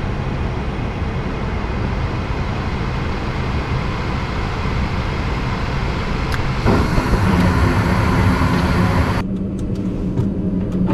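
Gas furnace starting up after its tripped high limit switch was reset: the draft inducer motor runs steadily. About six seconds in a faint click comes, then the sound grows fuller with a low steady hum, as the gas valve opens and the burners light.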